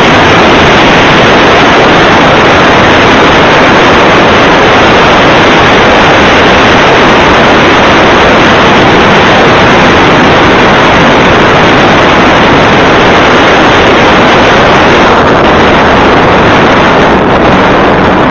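Loud, steady rush of wind on the microphone over the running motor of a moving motorboat and the water along its hull; it eases a little near the end.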